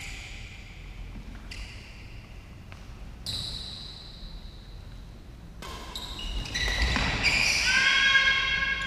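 Sports shoes squeaking on a badminton court floor: several sharp, high-pitched squeaks, some drawn out, coming more often and louder in the last three seconds.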